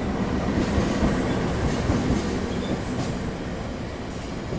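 CC 206 diesel-electric locomotive passing close by, followed by its passenger coaches rolling past, the wheels rumbling and clattering on the rails.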